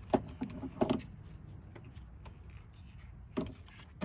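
A few scattered light clicks and knocks of hand work: a plastic ignition coil pack being picked up and handled to go back over its spark plug. The loudest knock comes near the end.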